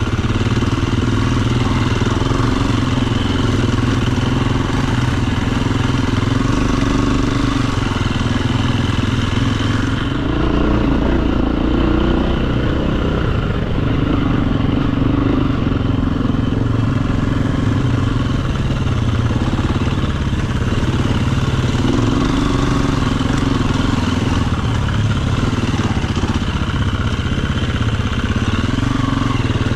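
Enduro dirt bike engine running steadily on a trail ride, its note rising and falling with the throttle.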